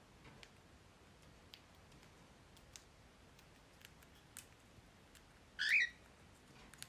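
Pet parrot feeding: faint, scattered clicks of its beak picking at seed, and one short chirp near the end.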